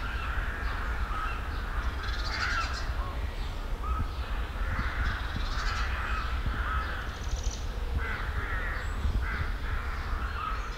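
Crows cawing over and over, with a few higher bird chirps and a steady low rumble underneath.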